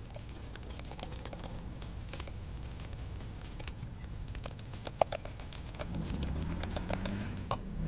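Wire whisk beating thick cake batter in a glass bowl: the tines click and scrape against the glass in quick, irregular taps, with one sharper knock about five seconds in.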